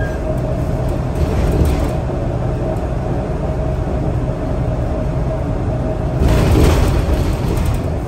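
Scania L94UB city bus on the move, heard from inside the passenger cabin: steady engine and road rumble with a steady whine. About six seconds in, the noise swells louder for under a second.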